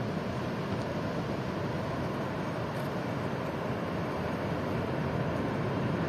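Ocean surf breaking on a pebble shore, a steady wash of waves with no pause.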